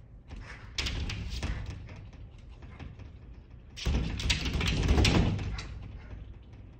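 A Rottweiler pawing and jumping against a glass sliding door to be let in, rattling and thumping it in two bouts: one about a second in, and a louder one about four seconds in.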